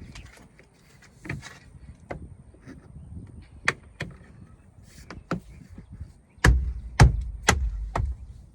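Hand blows on a 2001 Toyota Sequoia's plastic liftgate trim panel, snapping its retaining clips into place. A few light clicks and taps come first, then four hard thumps about half a second apart near the end.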